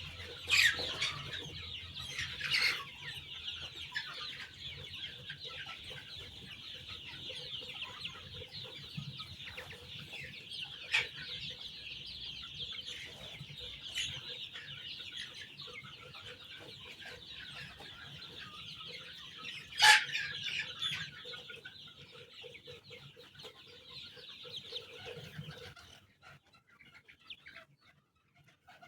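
A large flock of young chickens peeping together in a dense, continuous high-pitched chorus, with a few louder single calls rising above it. The chorus drops away suddenly near the end.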